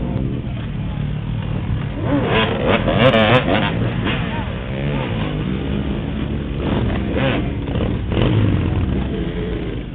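Several motorcycle and ATV engines running together, with a crowd's voices. It gets louder and busier about two to four seconds in.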